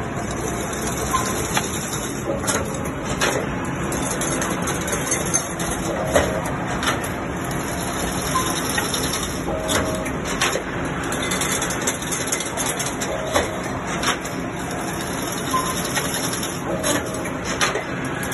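Fully automatic chain link fencing machine running, a steady mechanical clatter with frequent sharp clicks and knocks as it weaves wire into diamond mesh, its cycle repeating about every three and a half seconds.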